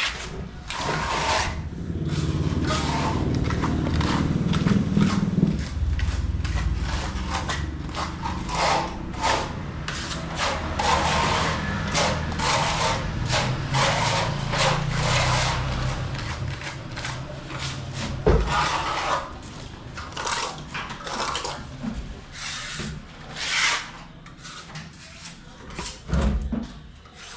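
Plastering trowel scraping skim coat onto a wall in many short, repeated strokes.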